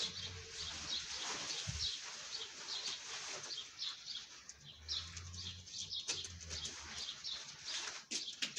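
Small birds chirping rapidly and repeatedly in the background, several short high chirps a second throughout, with a few low rumbles and some rustles and knocks from the pop-up screen tent being pulled open, thickest near the end.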